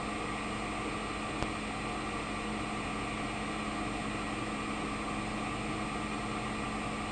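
Grob traveling-head band saw running steadily, its motor and turning blade giving an even hum with a thin high whine. A single short tick about a second and a half in.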